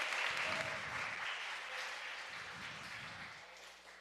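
Audience applauding, the clapping fading away over the few seconds.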